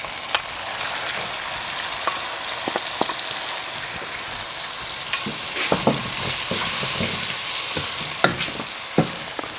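Diced tomatoes sizzling in hot oil with onions and spices in a pan, a steady frying hiss, with a spoon clicking and scraping against the pan as they are stirred in. The taps come more often in the second half.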